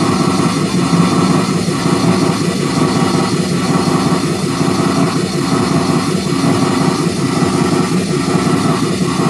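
Dense, engine-like synthesizer drone, steady and loud, with a slow pulse about once a second.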